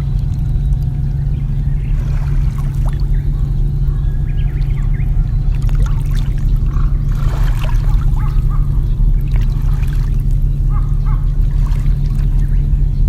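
Water trickling and splashing over a steady low rumble, with scattered faint short sounds above it.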